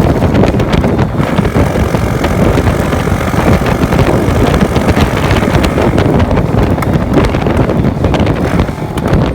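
Wind buffeting a phone's microphone on a motorcycle at highway speed, a loud, steady low rumble, with the Honda Wave 110's small four-stroke single-cylinder engine running underneath.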